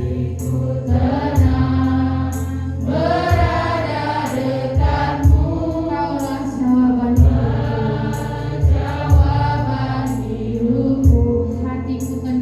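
Choir singing a Christian worship song over a band with bass and a steady drum beat; the voices grow strong about three seconds in.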